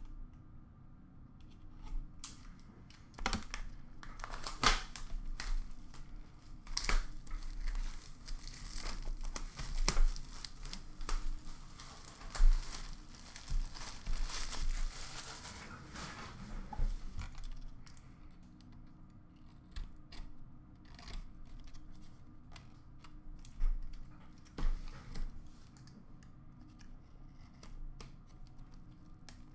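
Plastic shrink-wrap being torn and crinkled off a sealed cardboard hobby box of hockey cards, with sharp clicks and knocks as the box is handled. The crinkling is densest in the first half and thins to scattered handling sounds later on.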